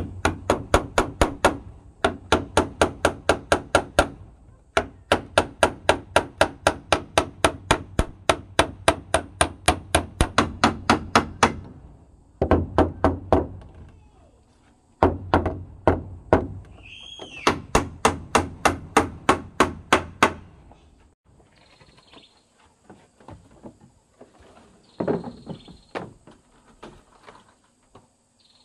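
Hand hammering on wood: runs of steady blows at about three to four a second, broken by short pauses, which stop about 21 seconds in and give way to a few light scattered taps.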